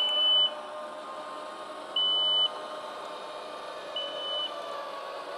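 DJI Dock 2 sounding its warning beeper as its covers open: three high, steady beeps, each about half a second long and two seconds apart, over a faint motor hum from the moving covers.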